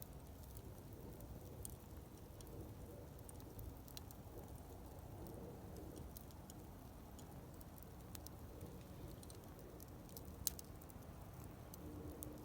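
Wood campfire crackling softly: scattered small crackles over a low steady background noise, with one sharper pop about ten and a half seconds in.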